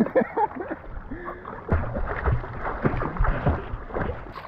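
Stand-up paddleboard paddle working through lake water: a run of splashes and gurgles, thickest in the second half.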